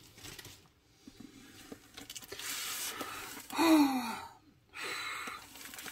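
Rolled diamond painting canvas rustling and sliding under the hands as it is unrolled across a table, in two spells of rustle. Between them, about three and a half seconds in, a brief falling vocal sound like an admiring sigh.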